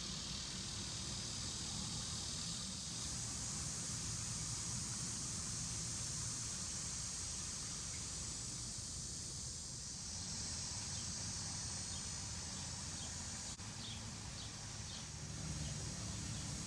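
Outdoor ambience of a steady, high-pitched insect chorus over a low rumble, with a faint click and a few short high chirps near the end.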